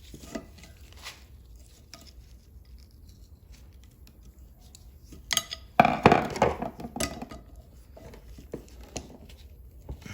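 Steel tool clinking and scraping against an axle shaft and its bearing retainer while prying an old axle seal loose. Light taps and clicks, then a loud burst of clanks and scraping about five to seven seconds in.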